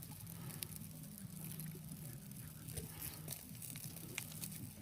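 Burgers sizzling on a camping grill: scattered small crackles and spits over a steady low hum.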